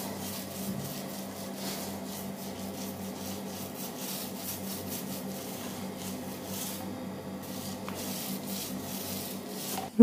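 Small paint roller rubbing over a painted door slope in repeated soft strokes, about two a second, with a brief lull about seven seconds in.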